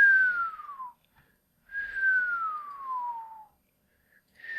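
A person whistling breathy notes, each sliding down from a higher to a lower pitch. One ends about a second in, a longer one follows, and a third starts near the end.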